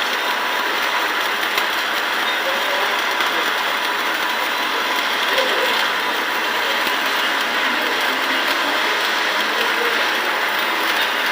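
Electric arc welding crackling and sizzling steadily.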